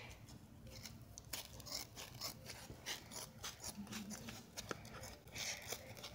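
Scissors cutting through packing foam: a run of faint, irregular snips and rasps.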